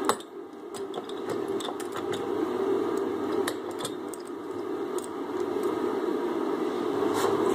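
Scattered clicks and clinks of a red steel C-clamp being handled and its screw turned against a wooden workbench edge, over a steady low hum of shop noise.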